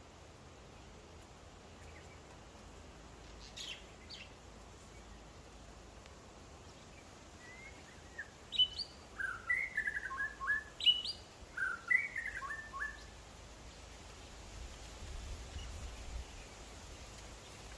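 A songbird calling: a couple of faint high chirps about four seconds in, then several short phrases of quick falling chirps over about five seconds, from about eight seconds in, the loudest part. These sit over faint steady background noise.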